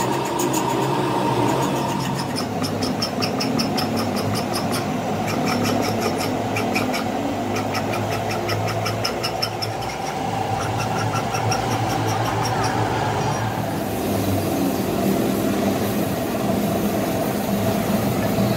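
Steady machine drone with rapid short, high scratching ticks over it for most of the stretch; the sound changes abruptly about two-thirds of the way through.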